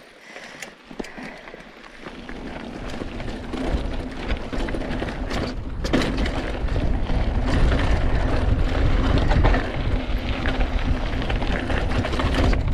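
A mountain bike rolling down a dry, rocky dirt trail: wind buffeting the camera microphone and tyres crunching over gravel, with rattles and knocks from the bike over rocks. The sound builds from about two seconds in as the bike picks up speed.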